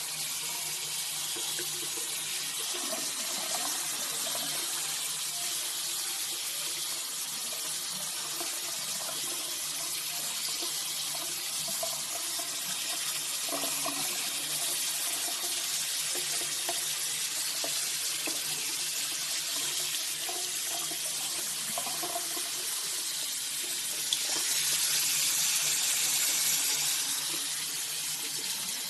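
Tap water running steadily into a sink and splashing over a small puppy held in cupped hands under the stream, louder for a few seconds near the end.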